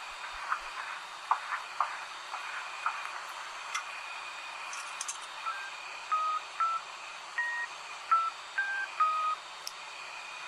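Payphone touch-tone keypad being dialled: a quick run of about seven short two-tone beeps in the second half, after a few faint clicks over a steady hiss.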